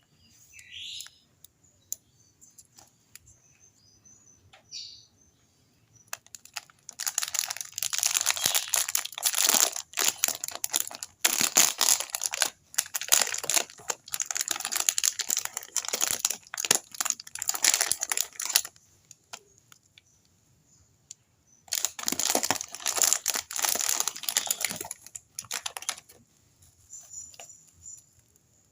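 Packaging crinkling and rustling as it is handled and opened by hand, in two long stretches: one from about seven seconds to eighteen, and another from about twenty-two seconds to twenty-six.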